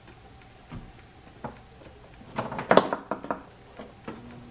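Mechanical timer knob on an air fryer being turned, giving an irregular series of small clicks and knocks, with the loudest cluster a little under three seconds in.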